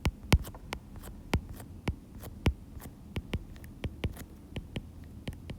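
A pen tapping and clicking in quick, irregular strokes as line numbers are written, over a faint low electrical hum.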